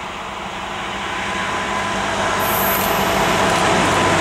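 SNCF Infra Y 8000-class diesel shunting locomotive hauling a train of empty flat wagons as it approaches. Its engine drone and wheel noise grow steadily louder, with a brief high squeal about two and a half seconds in.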